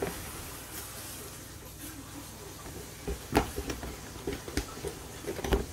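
Handling and opening a cardboard gift box: scattered taps, clicks and knocks of packaging being handled, the sharpest about three seconds in and another near the end.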